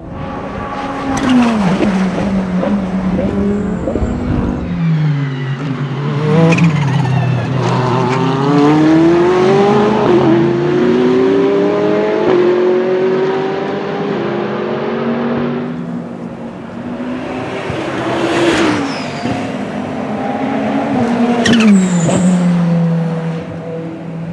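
Ferrari 488 GT3's twin-turbo V8 race engine running hard, its revs repeatedly climbing and dropping through gear changes. Twice in the second half, as the revs fall, there is a brief hissing burst, the turbo flutter.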